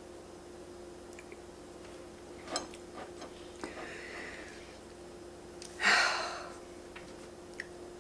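Fork clicking and scraping against a plate as it cuts into a fudgy chocolate brownie, with faint chewing. About six seconds in comes a short, loud rush of breath that fades quickly.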